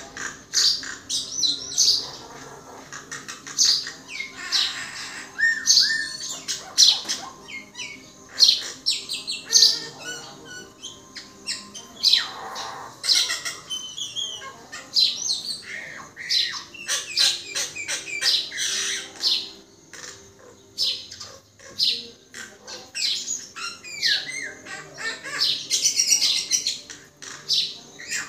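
Common myna calling: a busy, varied stream of sharp clicks, squawks and short whistled notes, some of them gliding.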